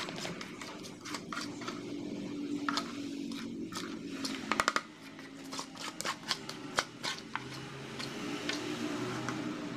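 Spatula scraping thick cake batter out of a metal mixing bowl into a plastic mould, with scattered light clicks and taps of the spatula against the bowl, over a low steady hum.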